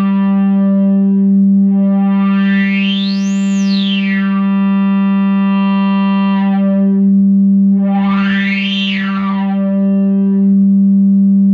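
Barton Musical Circuits Sallen-Key VCF, a DIY Eurorack synthesizer filter, fed a steady sawtooth drone at its low-pass input with the resonance turned up to self-oscillation. The cutoff sweeps twice, each time gliding up to a high whistle and back down, once in the first half and once in the second.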